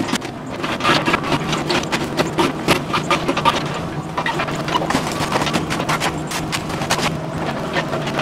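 Mini excavator tearing down a brick house: its engine runs steadily under a dense, irregular run of cracking, snapping and crunching as wood framing and brick break and fall.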